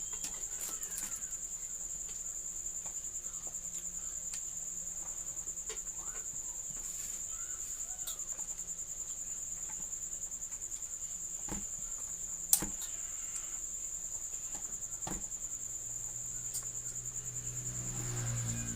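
Crickets chirping in a steady, high, fast-pulsing trill, with scattered faint clicks and one sharp click about twelve and a half seconds in.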